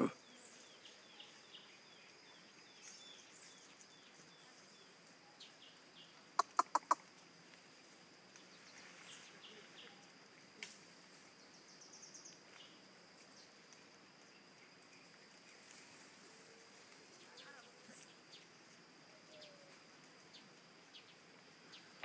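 Faint forest-edge ambience: a steady high insect drone with scattered soft chirps. About six seconds in, a bird gives a quick run of four loud, high notes.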